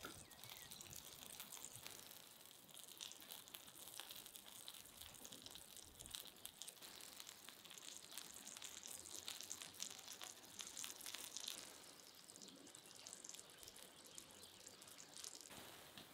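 Faint sizzling and crackling of eggs frying in a large steel pan over a wood fire.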